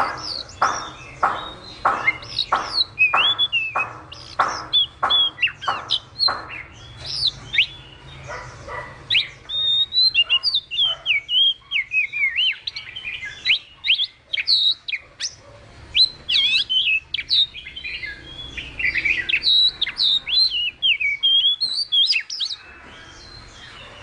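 Chinese hwamei (melodious laughingthrush) singing. It opens with a run of loud notes repeated about two or three times a second, then breaks into a long, varied warble of whistled phrases that stops shortly before the end.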